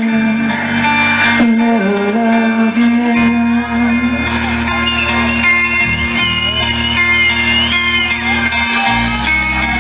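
Rock band playing live in a large hall: electric guitar, bass and drums on held notes, with a high wavering melody line near the middle.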